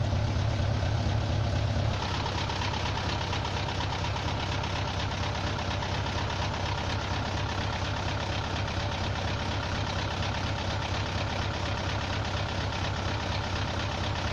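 Diesel engine of a Hino FS Ranger concrete mixer truck running steadily; about two seconds in, the deep hum drops and the sound turns higher and rougher.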